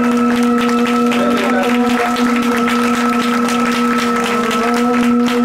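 Suge lion dance accompaniment: a single low note held without a break for about six seconds, over a dense stream of sharp clicks or claps.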